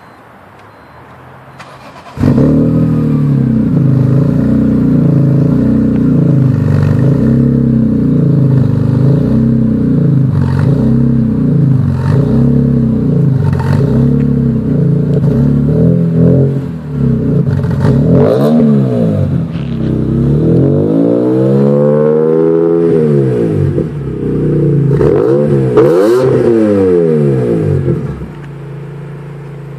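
Six-cylinder car engine with a loud aftermarket exhaust being revved in place. It comes in loud about two seconds in, then blips up and down about once a second, gives longer, higher revs in the second half, and settles back to a quieter idle near the end.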